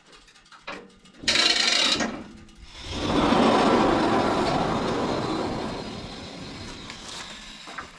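Woodland Mills HM122 portable band sawmill cutting through wood: a short burst of sawing just over a second in, then a longer cut from about three seconds in that slowly fades away.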